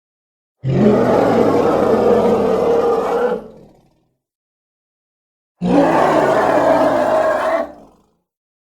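Designed triceratops creature vocalization: two long, low roars, each about two and a half seconds long. Each starts suddenly, holds steady and then tails off, with a silent gap between them.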